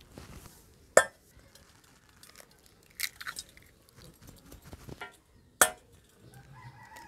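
Three eggs cracked one after another against the rim of a stainless steel bowl: three sharp taps about two seconds apart, with small shell crackles between them.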